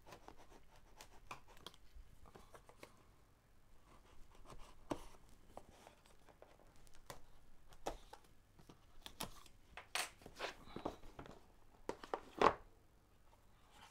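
A small blade slitting the seal on a cardboard product box, heard as scattered light scrapes and clicks. Near the end there is a louder scrape as the box's lid is worked off.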